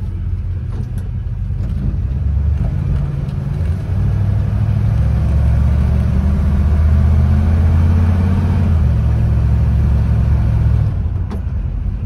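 Engine and road noise of a 1954 Chevrolet heard from inside the cabin while driving. The low engine drone grows louder from about two and a half seconds in and falls back just before the end.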